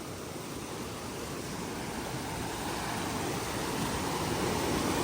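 River water rushing over rocks: a steady rush that grows gradually louder.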